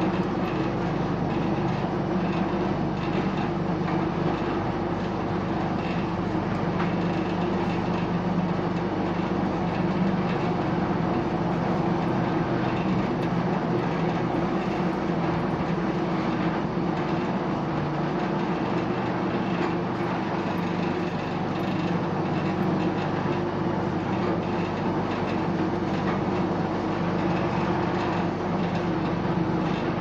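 Vibrating table for casting concrete paver blocks running: a steady, unchanging hum with a dense rattle over it.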